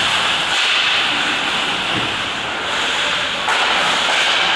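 Ice hockey rink noise during play: skates scraping and carving on the ice, heard as a steady hiss that swells and fades and echoes through the arena.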